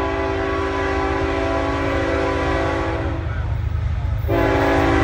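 Diesel locomotive air horn on a CSX intermodal train, sounding a long chord for about three seconds, stopping for about a second, then starting another long blast near the end, over a steady low rumble.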